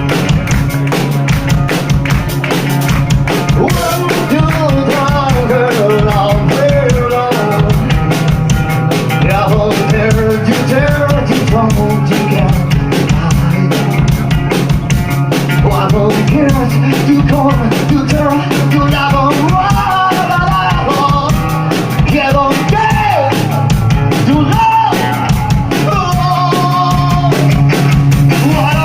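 Live alternative rock band playing loud, with distorted guitars, bass and a pounding drum kit, and a vocal or lead melody running over it from a few seconds in.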